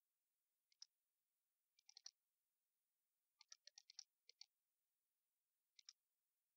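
Faint computer mouse clicks, alone and in quick runs, the longest run a little past halfway, against near silence.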